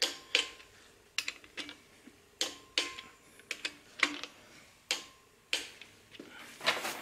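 Uneven metallic clicks and clinks from a torque wrench and socket on the connecting-rod cap bolts and the crankshaft of a bare Honda engine bottom end, about a dozen in all, some ringing briefly.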